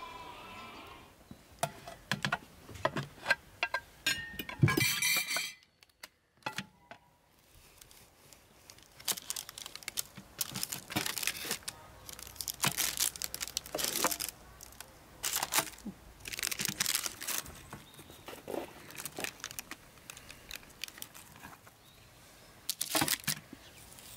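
Knife sawing through the crisp, sesame-topped crust of a freshly baked braided bread: a run of crackling cutting strokes with the crinkle of parchment paper under the loaf. Before that come scattered small clicks, a brief louder sound about five seconds in, and a short quiet gap.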